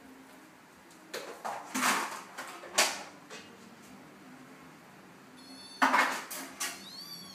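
Short scuffling and clattering noises of two Siamese cats play-fighting on a tiled floor, in a few separate knocks, with a brief high rising-and-falling squeak near the end.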